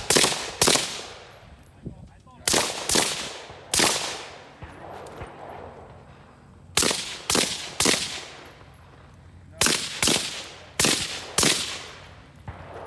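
Semi-automatic rifle shots: about a dozen in quick pairs and a triple, with pauses of one to three seconds between the groups. Each shot echoes.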